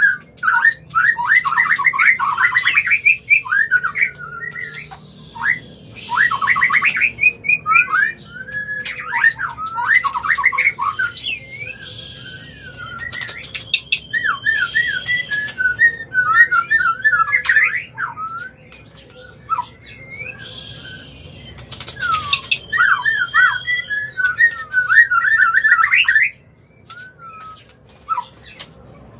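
White-rumped shama (murai batu) breeding calls: fast runs of jumping whistled notes broken by harsh rasping notes about a second long, a sign of a bird in breeding condition. The calling eases off near the end, leaving a few short notes.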